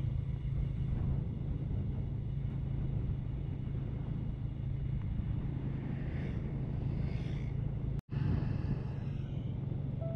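Steady low rumble of a vehicle driving along a paved road, engine and tyre noise together. About six seconds in, an oncoming car passes with two brief whooshes. The sound cuts out for an instant about eight seconds in.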